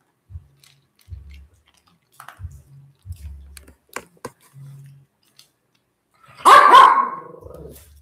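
A small dog barks once, loudly, about six and a half seconds in, the sound tailing off over about a second. Before it, faint scattered clicks of a dog crunching dry kibble off the floor.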